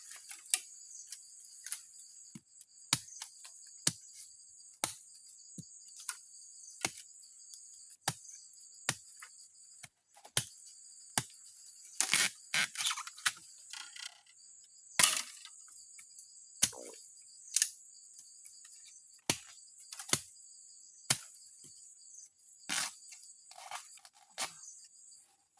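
Steady high insect chorus trilling on two pitches, with a series of sharp clicks and knocks about once a second over it, the knocks being the loudest sounds.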